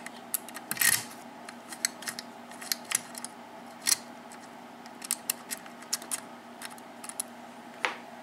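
Brass key sliding in and out of a Sargent six-pin lock cylinder, its pin tumblers clicking as they ride over the cuts. A string of sharp, irregular metallic clicks, the loudest about a second in, about four seconds in and near the end.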